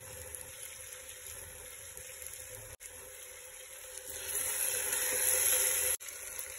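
Chopped onions sizzling as they fry in oil in an aluminium pressure cooker. About four seconds in the sizzle grows louder for a couple of seconds as a steel spoon stirs them.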